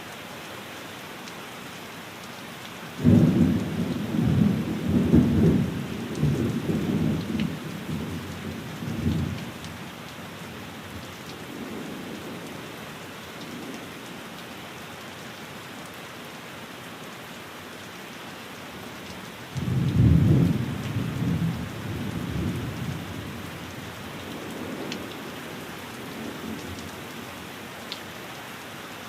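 Steady rain falling, with two rolls of thunder: one breaking suddenly about three seconds in and rumbling for around six seconds, another about twenty seconds in, shorter and fading into faint distant rumbles.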